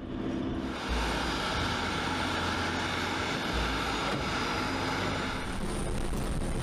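Aircraft engine running steadily: a broad rushing noise with a faint high whine and a low rumble, shifting slightly near the end.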